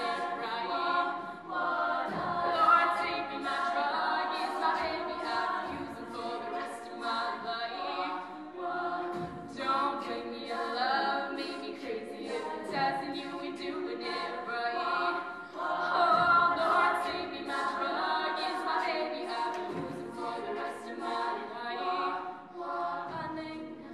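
All-female a cappella group singing in harmony: a lead voice over several backing voices, with sharp percussive clicks in the mix.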